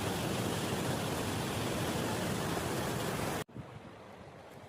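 Waterfall roaring as a dense, steady rush of water that cuts off abruptly about three and a half seconds in, leaving a much quieter background of rushing water.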